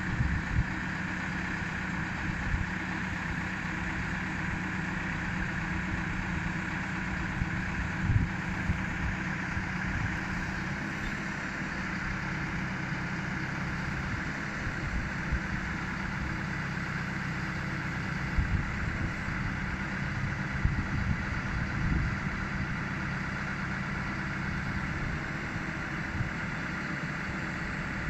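Manitou rotating telehandler's diesel engine running at a steady speed while the boom handles a suspended load, with a few brief low thumps on the microphone.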